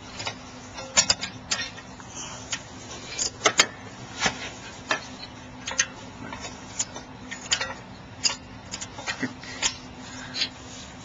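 Half-inch drive ratchet clicking in short irregular spurts as it turns a 7 mm Allen key to back out a brake caliper slider bolt.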